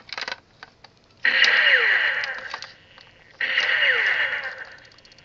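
Battery-powered 1993 Bandai Victory Gundam toy beam rifle playing its electronic firing sound effect through its small built-in speaker, twice, one shot per trigger pull. Each shot lasts about a second and a half, a burst of noise with falling pitch sweeps.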